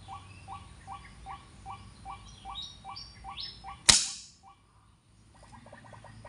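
White-breasted waterhen calls, short notes repeated about two and a half times a second, cut off about four seconds in by a single sharp gunshot that hits the bird.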